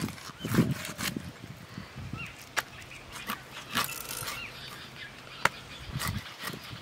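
Snakehead fish being scaled and cut against a boti's upright blade: irregular sharp clicks, scrapes and knocks of blade on scales, skin and bone.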